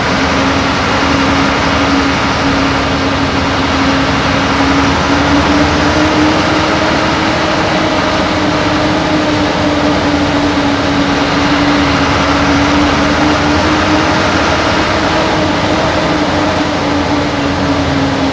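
A state-transport bus's diesel engine running steadily under way, heard from inside the driver's cab. It gives a steady drone whose pitch rises a little about five seconds in, over constant road noise.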